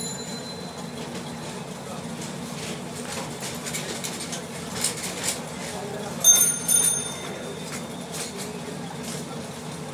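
Steady low background hum with scattered light clicks and taps, then a short high metallic ring with several tones about six seconds in, the loudest sound here.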